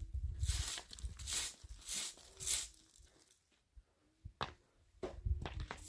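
Short bundled-straw hand broom sweeping stony dirt ground in brisk scratchy strokes, about two a second. The strokes stop for over a second after the middle and then resume near the end.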